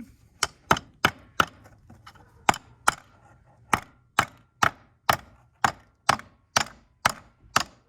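A hammer striking a crimped butt-end wire connector laid on a makeshift anvil, flattening it: about fifteen sharp blows, uneven at first, then settling to a steady two a second.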